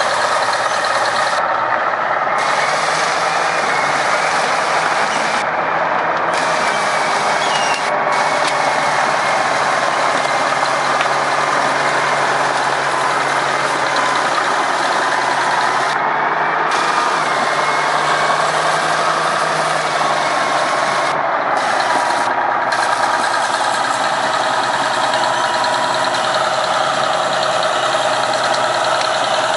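Heavy construction machinery running steadily, a loud, continuous mechanical drone with a faint wavering whine.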